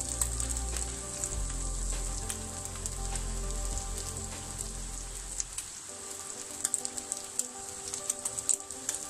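Fish pieces shallow-frying in oil on a tawa: a steady sizzling hiss full of sharp little crackles and pops. A low hum underneath stops about six seconds in.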